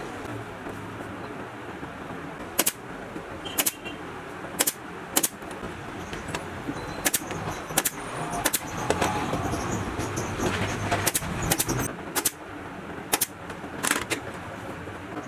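Staple gun firing about a dozen sharp single shots at irregular intervals, fixing leather cover material to an office chair, over a steady workshop background noise.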